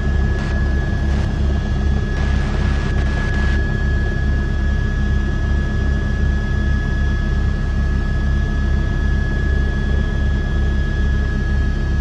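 Cabin noise of a news helicopter in flight: a steady low pulsing rotor beat under a constant high whine. A brief burst of hiss comes about two seconds in.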